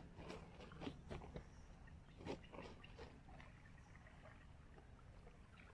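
Faint footsteps: a handful of irregular steps in the first three seconds, then only faint ticks, over a low steady rumble.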